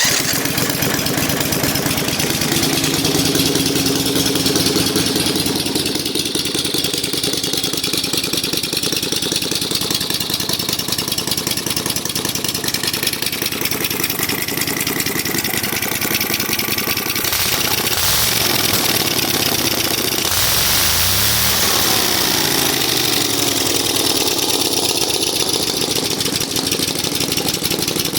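Briggs & Stratton Vanguard 18 hp V-twin engine running with no exhaust headers, its open exhaust ports loud, and the revs rising and falling for a few seconds about two-thirds of the way through. It has no air cleaner or governor and runs lean and poorly tuned.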